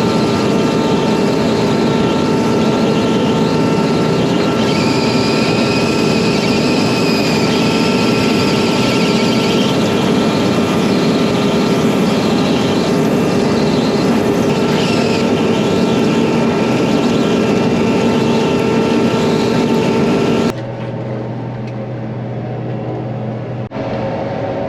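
A vehicle engine running steadily and loudly, with several steady whining tones over it. About twenty seconds in, it cuts abruptly to a quieter, lower engine hum.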